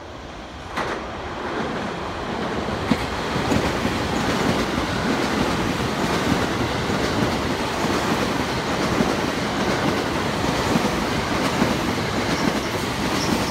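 Electric multiple-unit passenger train running past close below on the tracks, the rolling noise building about a second in and then holding loud and steady.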